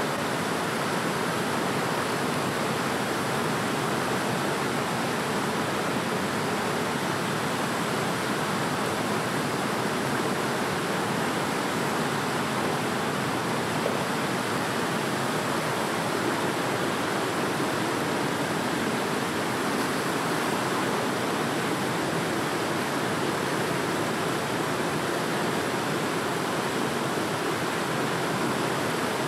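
Fast river water rushing and churning over rocks in rapids, a steady, unbroken noise.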